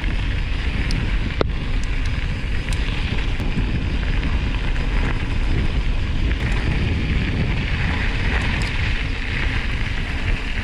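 Mountain bikes riding fast on a gravel trail: wind buffets the microphone in a steady low rumble over the hiss of tyres on loose surface, with a few sharp ticks in the first few seconds. The tyre hiss grows louder near the end.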